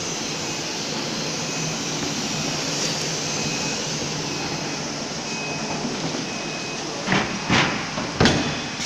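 Steady running noise of CNC woodworking router machinery, with a faint high beep about once a second. Three short, loud bursts come near the end.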